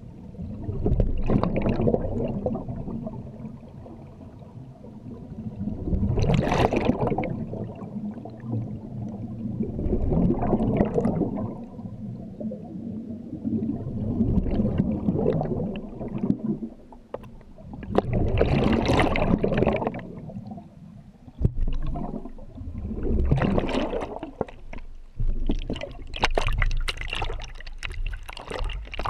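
Underwater, a scuba diver's exhaled breath leaves the regulator as bubbling, gurgling bursts that come back about every four seconds, with low water rumble between them.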